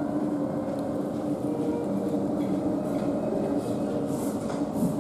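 Steady low mechanical rumble with a constant hum.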